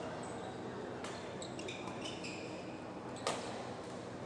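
Badminton rally on a hall court: a racket strikes the shuttlecock with a sharp crack just after three seconds in, after a fainter hit about a second in, and shoes give several short squeaks on the court floor in between, over the hall's steady background noise.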